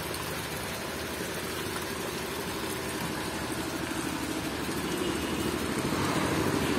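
A steady mechanical hum, like an engine running, under an even hiss; it grows slightly louder toward the end.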